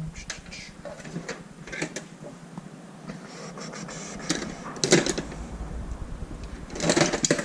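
Clicks and metal clatter of pliers working a stuck engine oil filler cap loose, with louder bursts of clatter about four to five seconds in and again near the end.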